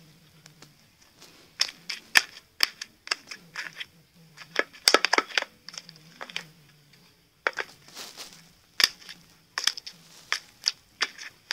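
Thick teal slime in a plastic tub being poked and pressed, giving irregular crackling clicks and pops in bunches.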